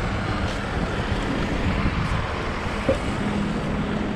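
Wind buffeting the microphone over a steady low hum, with one short sharp sound about three seconds in.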